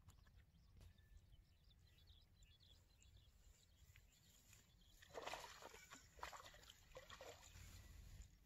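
Near silence with a faint low rumble of wind; from about five seconds in, a couple of seconds of faint rustling and scraping with a few ticks as a small caught fish is handled at the water's edge.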